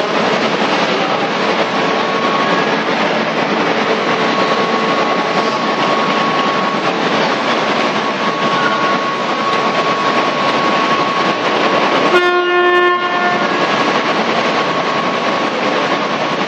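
High-pressure gas burner of a ladle preheating station running with a steady, even noise, a few faint steady tones running through it. About twelve seconds in, a horn sounds once for under a second.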